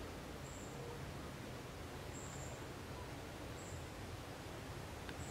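Outdoor ambience: a steady low rumble and hiss, with a faint, short, very high chirp repeating about every second and a half.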